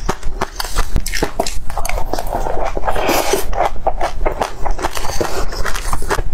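Close-miked eating: dense, irregular mouth clicks and smacks as a spoonful of fruit dessert is chewed. A metal spoon scrapes and clinks against a glass bowl near the start and again near the end.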